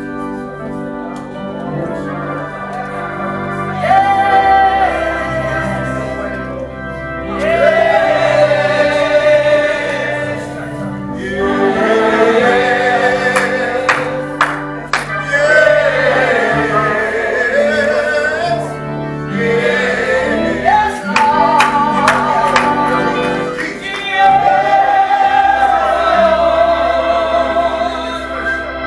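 Gospel music: a group of voices singing over a live instrumental accompaniment with held bass notes. A few sharp percussive hits fall around the middle.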